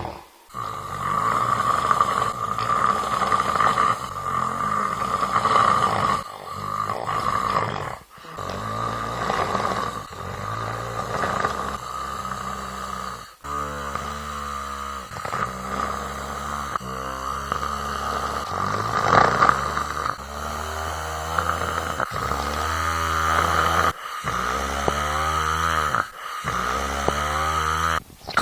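Snoring close to the microphone, breath after breath, roughly one every two seconds.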